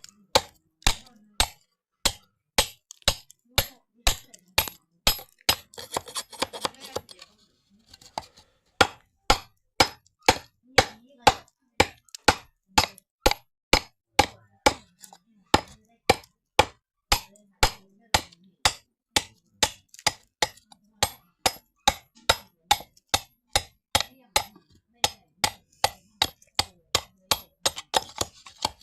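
Repeated sharp knocks of a hand tool striking bamboo, about two a second and evenly paced, with a short pause about seven seconds in.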